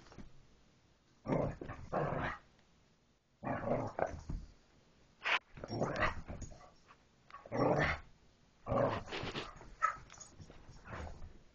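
A dog vocalising right at the phone in a series of short, noisy bursts, each under a second, with brief pauses between them.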